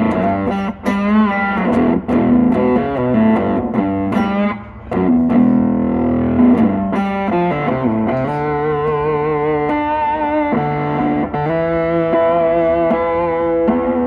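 Electric guitar played through a Behringer SF300 fuzz pedal into a small tube amp: a riff of short, choppy notes, then from about the middle sustained notes shaken with vibrato. The tone stays thick and gritty, the pedal not cleaning up well.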